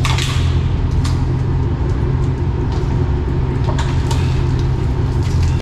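Steady low rumble of a moving car, road and engine noise heard from inside while riding, with a few faint knocks; it cuts off abruptly at the end.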